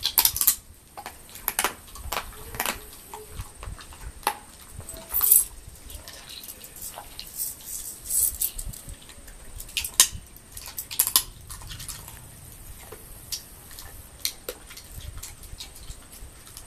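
German Shepherd chewing pistachios, with irregular sharp crunches and cracks as the shells break in its mouth.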